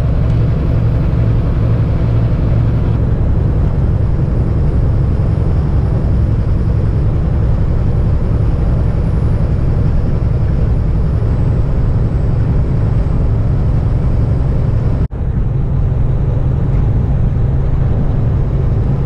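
Kenworth heavy-haul tractor's diesel engine droning steadily under way, with road noise. The sound cuts out for an instant about 15 seconds in.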